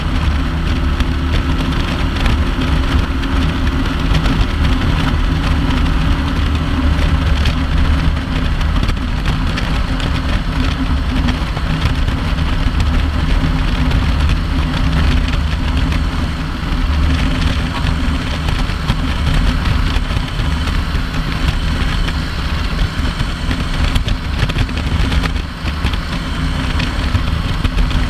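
Kawasaki Vulcan 900 LT's V-twin engine running steadily at highway cruising speed, under a steady rush of wind and road noise.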